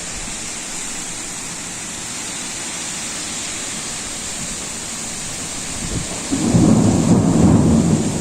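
Heavy rain hissing steadily in a downpour. About six seconds in, a loud low rumble breaks in and keeps going.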